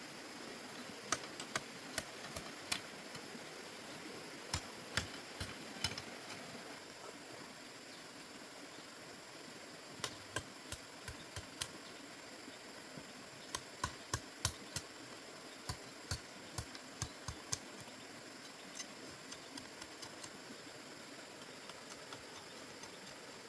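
Irregular light knocks and taps, sharp and short, coming in clusters of a few at a time over a steady background hiss.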